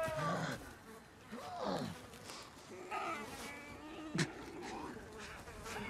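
A badly wounded man groaning and breathing raggedly, with strained, falling cries. A sharp click is heard about four seconds in.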